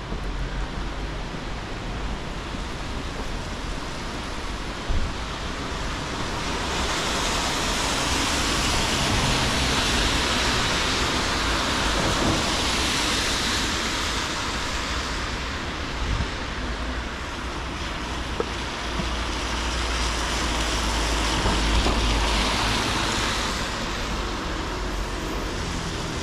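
Traffic on a rain-wet street: a steady hiss of rain and tyres on wet road over a low engine rumble. The tyre hiss swells as vehicles pass, once for several seconds starting about seven seconds in and again near the end.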